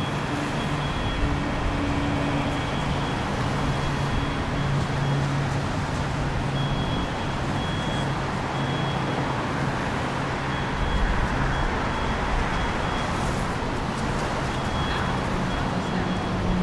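Road traffic on a wet city street: a steady hiss with a low, steady engine hum through the first half, and a deeper rumble swelling about ten seconds in.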